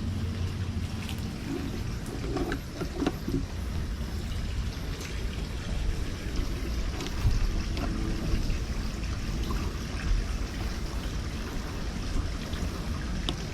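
Steady low outdoor background rumble with a few faint, scattered clicks.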